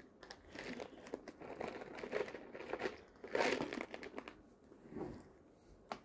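Hand rummaging in a plastic Temptations cat-treat container: a run of crinkling rustles, loudest about halfway through, then a shorter rustle and a click near the end.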